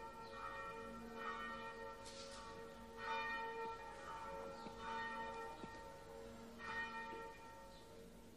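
Church bells ringing, struck unevenly about once a second, each stroke a long ringing tone, fading toward the end.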